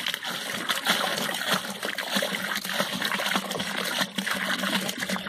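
Water pouring in a steady stream into a plastic drum, splashing into the foamy liquid soap base as it is diluted.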